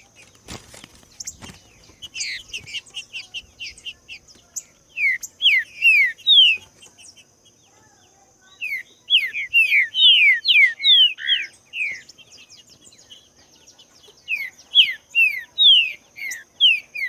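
Green-winged saltator (trinca-ferro) singing: repeated phrases of loud, clear, downslurred whistled notes with pauses of a second or two between phrases. A faint, steady, high-pitched hum and faint high chirps run underneath.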